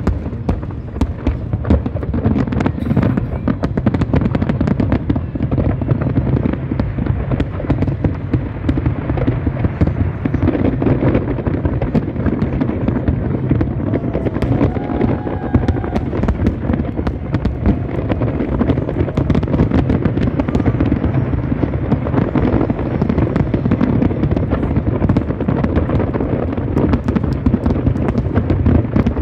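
Large aerial fireworks display in a dense barrage: many shells bursting in rapid, overlapping succession, making a continuous rumble of bangs with no let-up.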